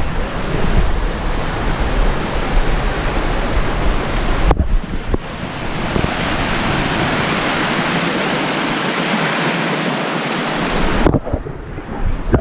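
Waterfall water rushing as a steady, even hiss, with wind buffeting the microphone as a gusty rumble in the first few seconds. About four and a half seconds in the sound switches abruptly to a smoother, louder rush without the rumble, and it switches back near the end.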